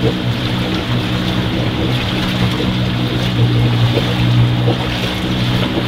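A raft's boat motor running steadily at an even speed, with wind buffeting the microphone.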